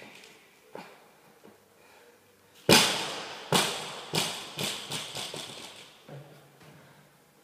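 Barbell loaded with bumper plates dropped onto a rubber gym floor. It lands with one loud thud, then bounces several more times, the bounces coming quicker and fading out.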